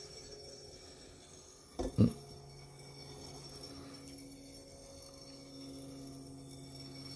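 Toy gyroscope's spinning rotor giving a steady low hum as it balances tilted on the pivot of its stand, with a sharp double knock about two seconds in.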